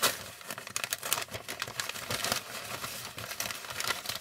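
Paper gift wrap crinkling and rustling as it is pulled open by hand: a run of irregular crackles, the sharpest right at the start.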